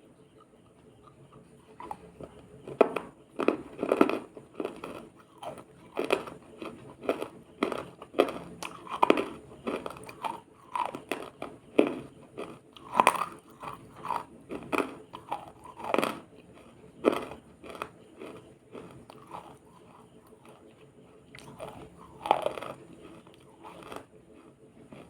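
A person biting and chewing something crunchy close to the microphone, in a long run of sharp, irregular crunches with a brief lull near the end.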